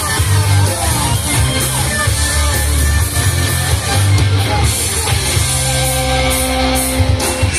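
Hard rock band playing, led by electric guitar, with a held note in the last couple of seconds.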